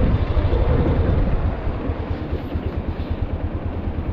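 Motorcycle engine running at low revs as the bike rolls slowly forward, a steady, rapidly pulsing low rumble.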